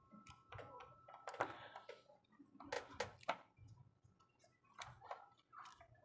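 Faint, irregular small clicks and taps of precision repair tools working on the opened insides of a Vivo Y11 smartphone, as its screws are taken out.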